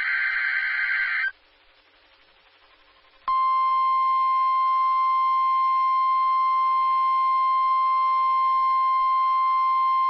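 NOAA Weather Radio weekly test alert. A harsh, buzzy SAME digital header burst ends about a second in. After a pause of about two seconds, the steady 1050 Hz weather radio warning alarm tone starts abruptly and holds, loud and unchanging.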